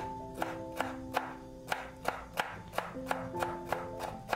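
A knife chopping vegetables on a cutting board, a sharp knock about three times a second, over background music with held notes.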